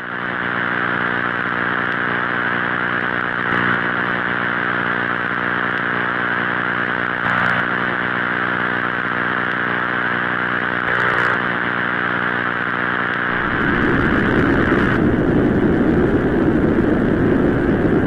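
Space-sound drone of the kind used to represent a moon: a steady, buzzy hum with many evenly spaced overtones, which about thirteen seconds in turns into a rougher, noisy rumble.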